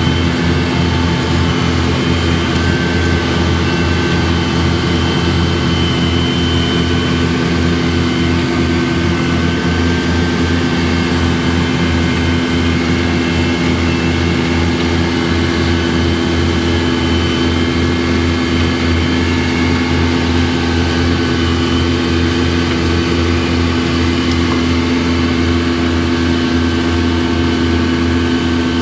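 Engine of a Caterpillar tracked asphalt paver running steadily up close, a loud even hum at a constant pitch.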